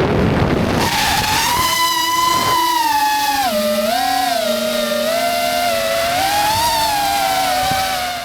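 DeepSpace Seeker 35 3.5-inch FPV quadcopter's motors and propellers whining in flight, the pitch dipping and rising with the throttle. The whine eases down and fades near the end.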